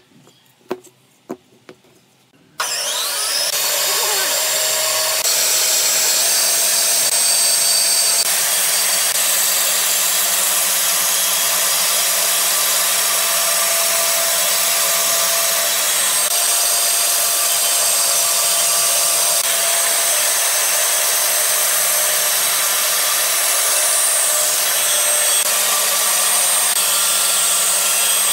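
Band saw running and cutting a wooden block along a curve: a loud steady noise with a constant hum, starting suddenly about two and a half seconds in. Before it, a few light knocks of wooden blocks being handled on a workbench.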